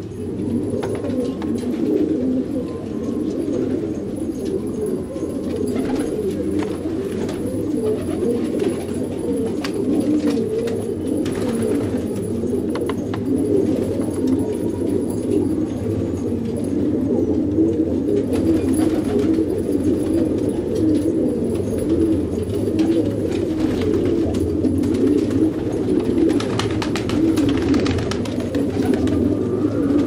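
A flock of domestic fancy pigeons cooing together in a continuous, overlapping chorus.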